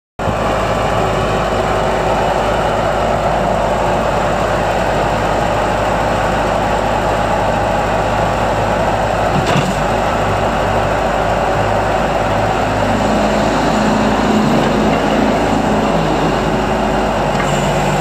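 Bobcat 873 skid steer loader's 73.5 HP Deutz diesel engine running steadily while the loader arms are raised. A brief click comes a little past halfway, and a steady higher drone joins in about three-quarters of the way through.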